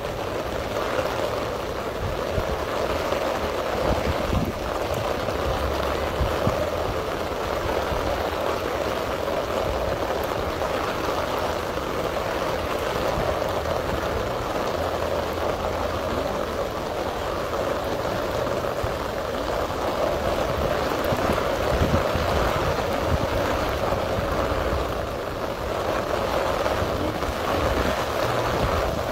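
Steady rushing noise of rain and floodwater across a flooded car park, with an uneven low rumble underneath.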